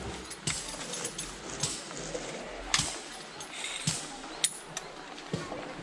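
Tent pole sections being joined: about half a dozen sharp metallic clicks and clinks at irregular intervals.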